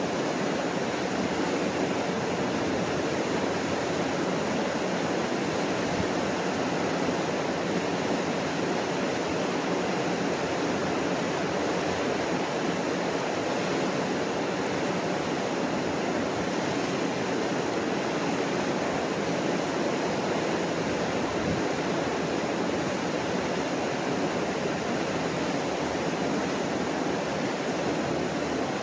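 Mississippi River rapids: whitewater pouring over a low rock weir, a steady, unbroken rushing of water.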